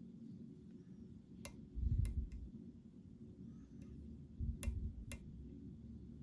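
Lock picking in a pin-tumbler challenge lock: a handful of sharp, irregular clicks as the hook pick works the pins against the tensioner, with two dull handling thumps.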